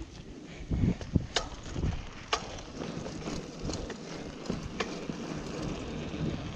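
Bicycle tyres rolling on a concrete footpath, heard from a chest-mounted GoPro: a low, steady rumble with a few sharp clicks and knocks as the bike runs over the path.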